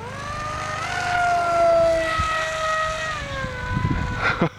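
AXN Floater Jet RC plane's electric motor and propeller whining at high throttle, screaming loud. The pitch jumps up sharply at the start and again about a second in, holds high, then drops back in two steps near the end as the throttle is eased.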